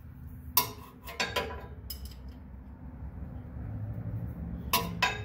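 Hand tools clinking and knocking on metal while working at the engine block's coolant drain plug: a few sharp metallic clinks about half a second in, several more over the next second and a half, and two near the end, over a low steady hum.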